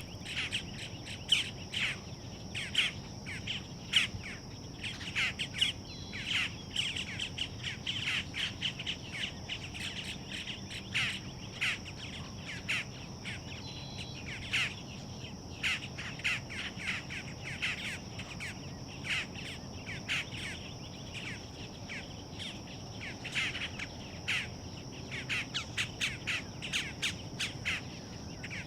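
Birds calling with many short, sharp notes in quick succession, over a steady high-pitched hum.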